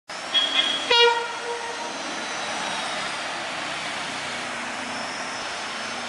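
A diesel locomotive horn sounds one short blast about a second in, which dies away within a second. A brief high toot comes just before it. After the horn, the steady running rumble of the approaching train continues.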